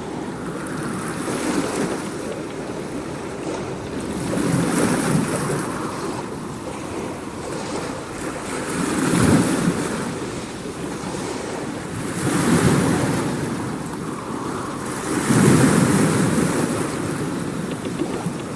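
Waves washing in, in slow swells of noise that rise and fall about every three to four seconds.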